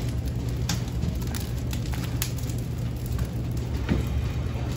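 Wood fire crackling and snapping in the open firebox of a maple syrup evaporator as split logs are loaded in, with scattered knocks from the wood, over a steady low hum.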